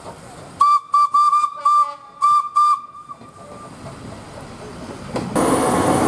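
Train horn on a first-generation diesel railcar sounded in a quick series of about six short toots at one high pitch, with a hiss of air on each. About five seconds in, a louder rushing noise of a passing train takes over.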